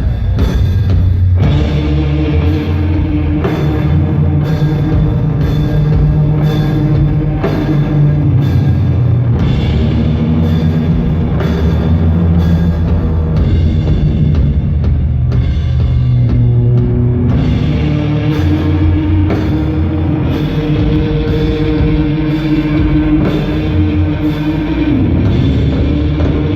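Doom metal band playing live: slow, heavy distorted guitars and bass over drums, with a drum and cymbal hit about once a second.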